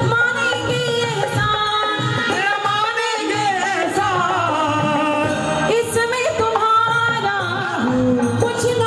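A Hindi devotional bhajan to Shyam (Khatu Shyam): a melody with singing over instrumental accompaniment.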